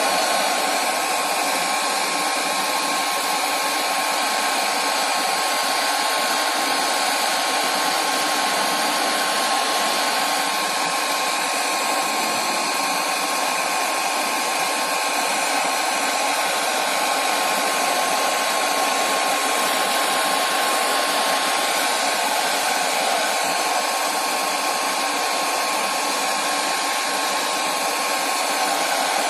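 Heat gun blowing hot air without a break: an even rush of air with a thin steady tone in it. The hot air is directed at a smartphone's cracked screen to soften the adhesive so the LCD can be lifted off.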